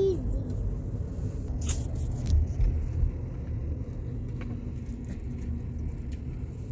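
Steady low road rumble of a car in motion, engine and tyres heard from inside the cabin, with a couple of faint clicks about two seconds in.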